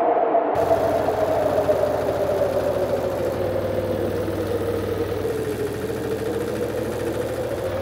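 Engine of a Bertolini 413S rotary tiller (K9000HD, 9.2 HP) running steadily, its pitch sinking slightly over the seconds.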